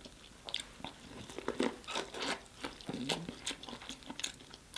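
Close-up mouth sounds of a person eating corn on the cob dripping with seafood boil sauce: irregular wet smacks, bites and chewing clicks.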